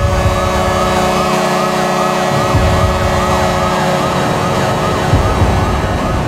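Hockey goal horn blasting together with a wailing siren that sweeps up and down about three times a second, set off with the red goal light. A heavy music beat comes in about two seconds in, and the horn stops about four seconds in while the siren goes on.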